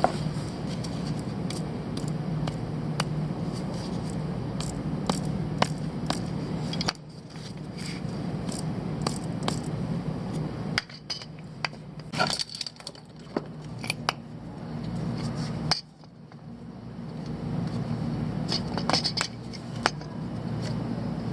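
Metal tools clinking and tapping against engine parts, many sharp light clicks over a steady low hum, broken by sudden cuts.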